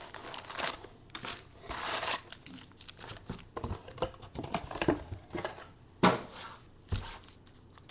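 Trading-card packs and cards being handled: irregular crinkling and tearing of the pack wrappers, with a few sharp taps as cards and packs are set down on the table.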